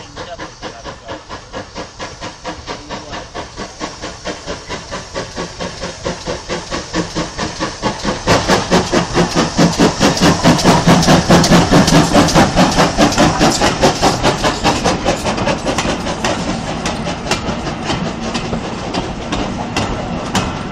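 GWR pannier tank locomotive 9681, an 0-6-0 tank engine, working a train past: steady chuffing exhaust beats with steam hiss, growing louder as it approaches and loudest about ten to twelve seconds in. Then the coaches roll by, their wheels clicking over the rail joints.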